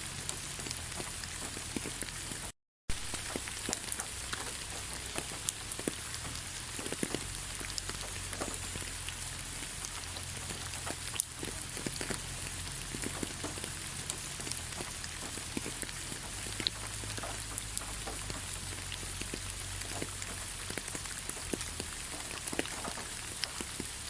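Steady light rain, with a dense hiss and many separate drops ticking. The sound cuts out completely for a split second about two and a half seconds in.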